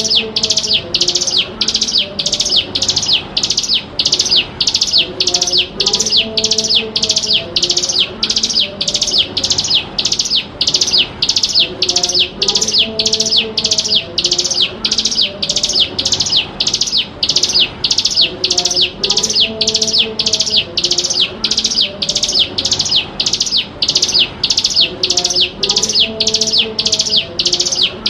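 Bar-winged prinia (ciblek gunung) singing continuously: a fast, unbroken run of sharp high notes, about two a second. Fainter, lower calls come and go beneath it every several seconds.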